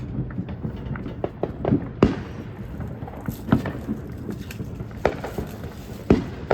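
Fireworks going off: irregular sharp pops and bangs, with a few louder bangs about two, three and a half, five and six seconds in.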